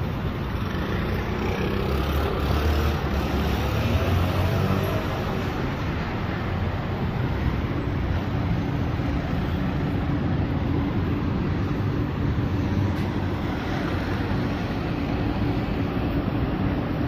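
Steady city traffic noise: car and motorbike engines running on the surrounding roads as a continuous hum.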